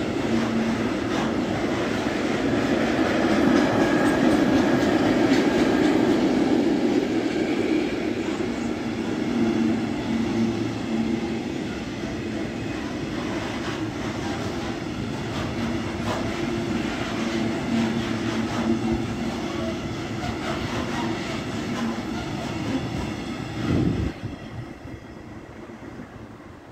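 Container wagons of an intermodal freight train rolling past on the track: a steady rumble and clatter of steel wheels on the rails. Near the end there is a single thump, then the sound fades away as the end of the train recedes.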